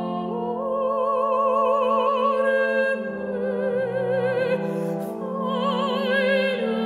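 A soprano singing long held notes in operatic style with wide vibrato, over sustained low chords from a trombone quartet.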